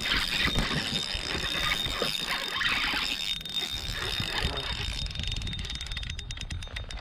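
Fishing reel being reeled in, its gears whirring, with a fast, even run of clicks near the end.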